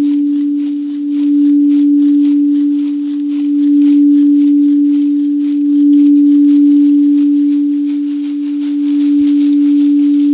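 Singing bowl sounding one held, steady tone that swells and eases every two to three seconds.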